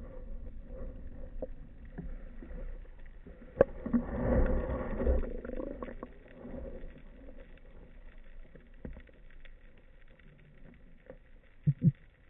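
Muffled underwater noise picked up by a speargun-mounted camera while a diver moves over seagrass: a low rumble of water movement that swells about four seconds in, with a sharp click just before it, scattered faint ticks, and two quick knocks near the end.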